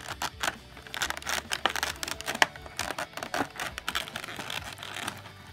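Clear plastic blister tray being handled, with irregular crinkling and sharp clicks and snaps of the thin plastic as it is pressed and pried apart.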